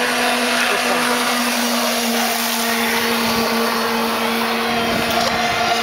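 Radio-controlled racing powerboats running at speed on the water, giving a loud, steady, high-pitched motor buzz.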